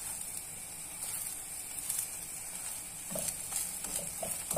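Vegetable crêpe frying in margarine in a nonstick pan, giving a faint, steady sizzle. A few brief, soft spatula sounds against the pan come near the end.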